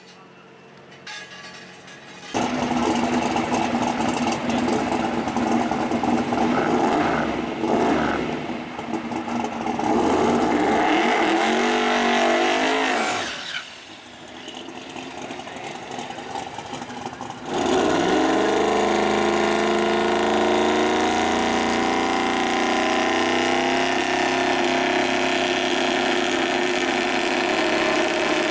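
Twin-turbocharged Fox-body Mustang drag car's engine running loud about two seconds in, revving up with rising pitch through a tyre-smoking burnout, dropping quieter for a few seconds, then coming back up and held loud and steady.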